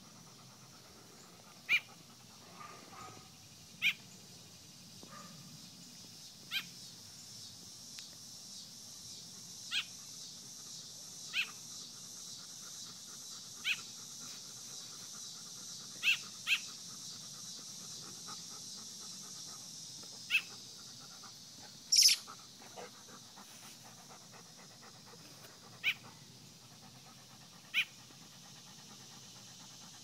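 Airedale Terrier panting softly, with a short sharp chirp every two seconds or so.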